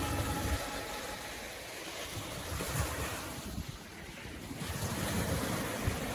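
Small ocean waves breaking and washing up a sandy beach, with wind rumbling on the microphone.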